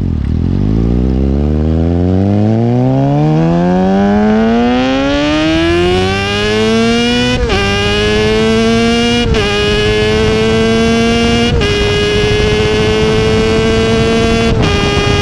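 2016 Kawasaki ZX-6R's 636 cc inline-four running through a baffle-less M4 Street Slayer exhaust under a hard highway pull. The revs climb steadily for about seven seconds, then four quick upshifts follow, each a brief break in the sound with the pitch dropping a little before climbing again.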